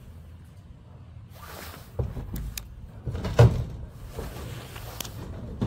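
Old 40-plus-year-old garage door sections being worked loose and moved: a series of knocks and scrapes with one loud creak about three and a half seconds in.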